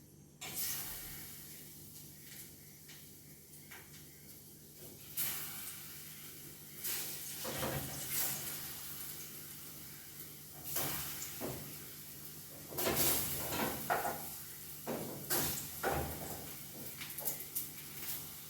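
Ripe plantain slices sizzling in hot frying oil; the hiss starts suddenly about half a second in. Knocks and clatter of handling come on top of it, thickest in the second half.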